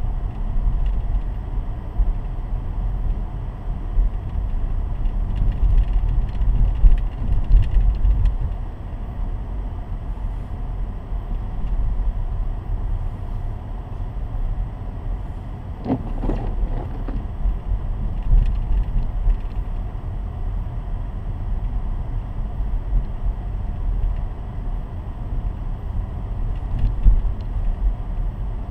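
A car driving: steady low rumble of the engine and tyres on the road, with a brief pitched sound about halfway through.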